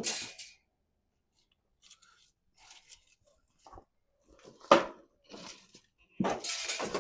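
Scattered rustling and scuffling, with a sharp knock about halfway through and a longer, louder stretch of rustling near the end.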